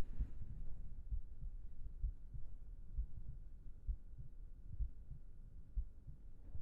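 A person's heartbeat, low thumps about once a second, steady and calm.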